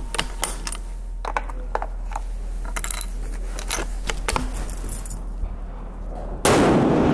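Bolt-action F-Class target rifle being worked between shots: a run of sharp metallic clicks and clinks as the bolt is cycled, the spent brass case ejected and a fresh round chambered. About six and a half seconds in comes a single loud rifle shot.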